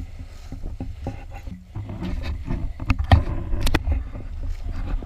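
Footsteps crunching through deep snow, uneven and continuous, over a steady low rumble, with a few sharp clicks a little past the middle.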